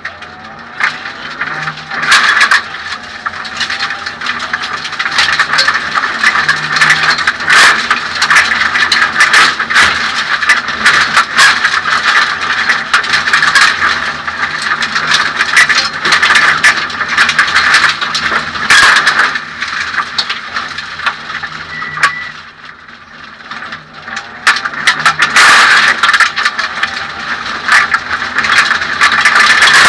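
Inside the cabin of a Suzuki Swift 1600 rally car driven hard: the four-cylinder engine revs up and down through the gears, with constant clicking and rattling from the stripped cabin. The engine drops off briefly about two thirds of the way through, then picks up again.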